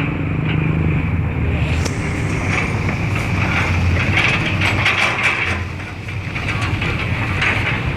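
Heavy machinery engine running steadily, with scattered clanks and scraping.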